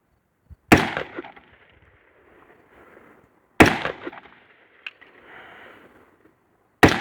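Three gunshots about three seconds apart, each sharp crack trailing off in an echo.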